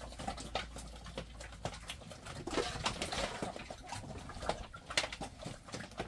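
Birds calling softly, with many short clicks and taps throughout.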